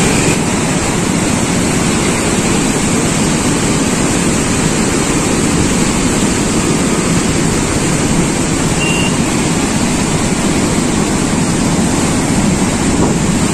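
Steady rushing wind noise buffeting a phone's microphone on a moving motorbike, with vehicle and road noise underneath. A short high chirp comes about nine seconds in.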